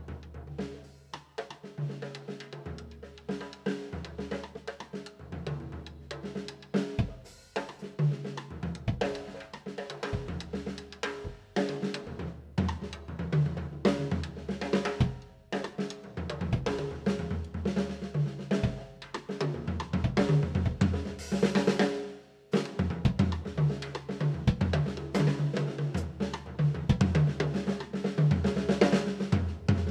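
Acoustic drum kit with Sabian cymbals played with sticks: bass drum, snare, hi-hat and cymbals in a busy groove that grows louder in the second half, over music with sustained low notes.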